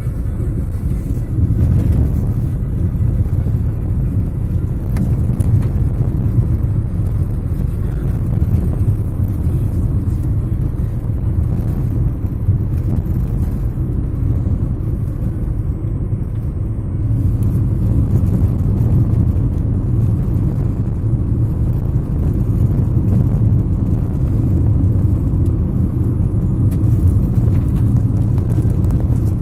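Car on the move, a steady low rumble of tyres and engine.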